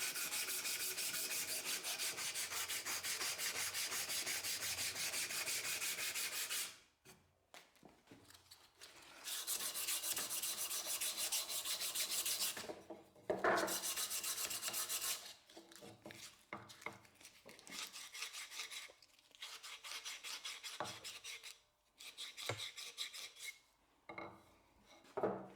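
Abrasive scrubbing on the old hammer in rapid strokes, in three long spells, with shorter scattered scrapes and a few knocks in the second half.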